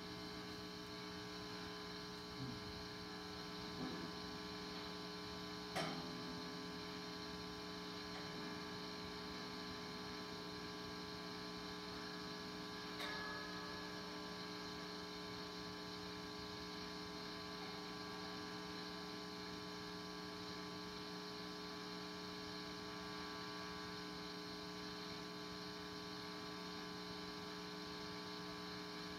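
Steady electrical hum and buzz from a guitar amplifier with an electric guitar plugged in but not being played, with a couple of faint clicks about six and thirteen seconds in.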